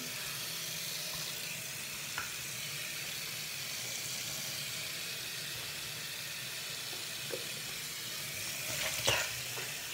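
Steady, even hiss with a faint low hum underneath, broken by a soft tick about two seconds in and a sharper click near the end.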